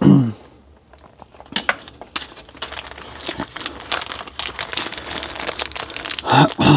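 Plastic packaging crinkling and rustling in a long, irregular run of crackles while the new replacement capacitor is taken out of its wrapping.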